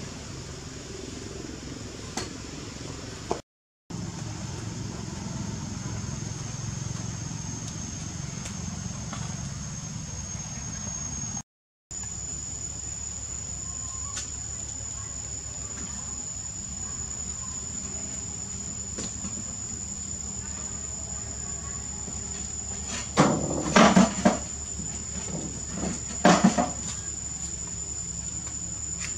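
Steady high-pitched drone of insects, breaking off twice briefly, with two loud short sounds about two seconds apart near the end.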